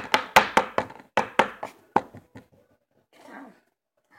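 Pencil point tapping rapidly on a tabletop between spread fingers in the knife game, about four or five taps a second, slowing and stopping about two seconds in; one more sharp tap near the end.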